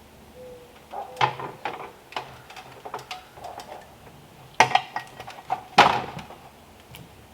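A string of sharp knocks and clatters at an uneven pace, the two loudest a little over a second apart just past the middle.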